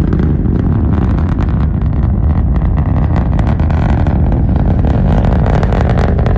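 Long March 5 rocket's engines heard from the ground during ascent: a loud, steady low rumble with a continuous crackle.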